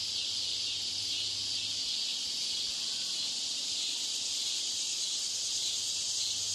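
Steady high-pitched hiss of ambient background noise, even and unbroken, with a faint low hum that fades out about two seconds in.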